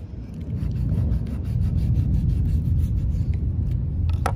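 Wind buffeting the microphone: a low rumble that swells about half a second in and holds, with a sharp knock near the end.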